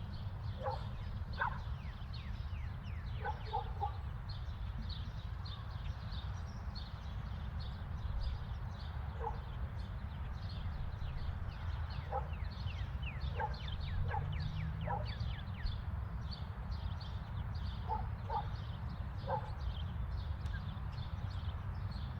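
Suburban neighbourhood ambience: a dog barking off and on, in short bursts of two or three barks, while small birds chirp and trill continuously over a steady low rumble.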